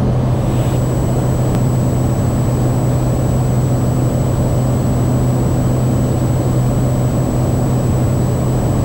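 Steady drone of the Cessna 208 Caravan's PT6A turboprop engine and propeller in flight, heard from the cockpit, a strong low hum under an even rush of noise, with a faint thin high-pitched tone above it.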